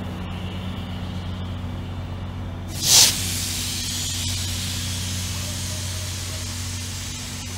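Diesel road-switcher locomotive's engine running steadily as the train moves slowly past, with a short, loud hiss of released air from the train's air system about three seconds in.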